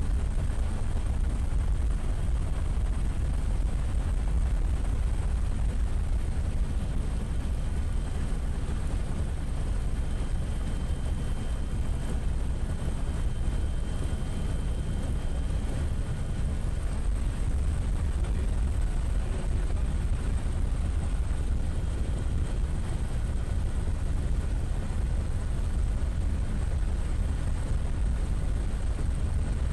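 Steady low rumble of an aircraft's engines and airflow, heard from on board, with a faint high whine over it.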